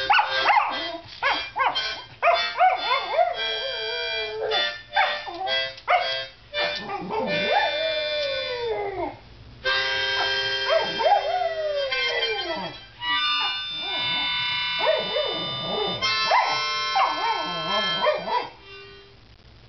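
A cocker spaniel howls along to a harmonica. The harmonica plays held chords while the dog's howls slide up and down in pitch, often falling away at the end. Both stop about a second before the end.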